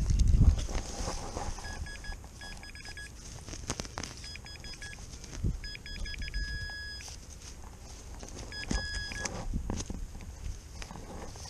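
Metal detector giving several short bursts of rapid, high-pitched beeping over a target in the ground, with a rustle of handling or digging at the start.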